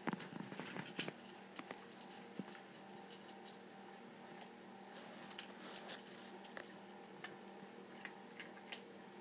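Cat crunching dry kibble from a bowl: irregular small crunches and clicks, busiest in the first second or so, with a faint steady hum underneath.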